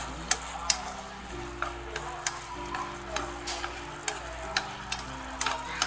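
Fried dried squid sizzling in a bubbling fish-sauce glaze in a wok as the glaze simmers down and thickens. The pieces are stirred with wooden chopsticks, which give sharp clicks against the pan every so often.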